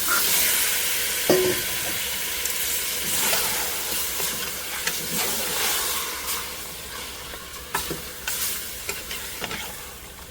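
Layer hen pieces sizzling in hot oil and curry seasoning in a pot as their water fries out, with a spoon knocking and scraping against the pot. The sizzle jumps up at once and slowly dies down, with one sharp knock about a second in.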